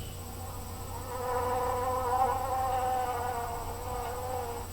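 A bee buzzing: a steady drone at one pitch with overtones, starting about half a second in and stopping just before the end.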